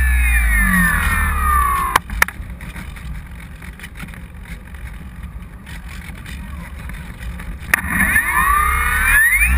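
Onboard a Parkzone Radian Pro electric RC glider: the motor and propeller whine falls in pitch, then cuts off with a couple of sharp clicks about two seconds in. Wind rushes past while the plane glides. Near the end a click comes and the whine rises again as the motor spins back up.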